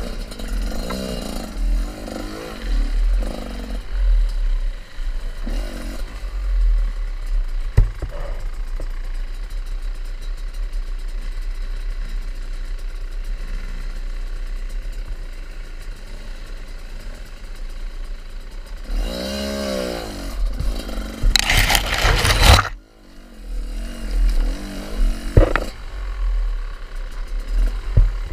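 Off-road motorcycle engine running on a ride, with a heavy low rumble underneath. About two-thirds of the way through the engine revs up and back down, then comes a loud noisy burst that cuts off suddenly.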